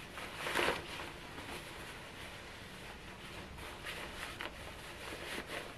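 Faint rustling of olive cotton shirting being handled, as the rolled-up shirt is pulled out through the yoke's neck hole to turn the enclosed yoke right side out. A slightly louder brush of fabric comes about half a second in, with a few lighter rustles in the second half.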